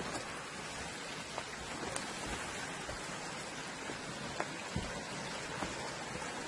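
Steady hiss of water trickling and flowing over rocks in a low-running stream, with a few faint scattered clicks.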